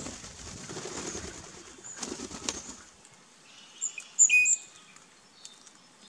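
Birds at a backyard feeding station: wings flapping during the first few seconds, then a loud bird call about four seconds in, with short high chirps scattered throughout.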